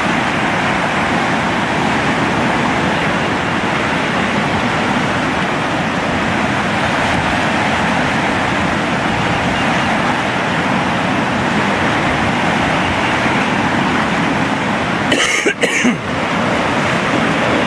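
Floodwater in a swollen river rushing past, a loud steady wash of moving water. Near the end, a short patch of uneven noise interrupts it.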